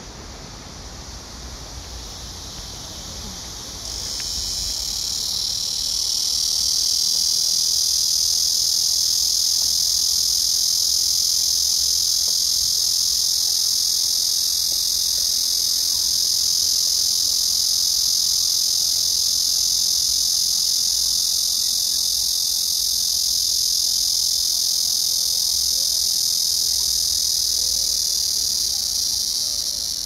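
Blackish cicada (Cryptotympana atrata) singing: one continuous high, hissing buzz. It starts about four seconds in, swells over a couple of seconds, holds steady, and cuts off abruptly at the end.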